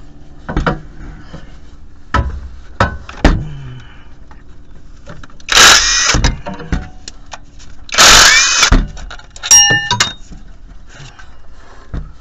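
Cordless impact wrench running on engine bolts of a Jeep 3.7 V6 in two short bursts, about five and a half and eight seconds in, with clanks of metal and tools between.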